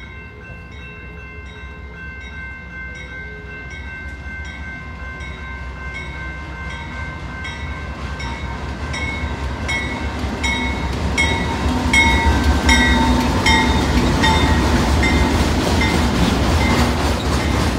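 A BNSF freight train led by a GE Dash 9-44CW diesel locomotive approaches and passes close by, its engine rumble and wheel noise growing louder from about ten seconds in. Behind it, a grade-crossing bell rings steadily at about two strikes a second.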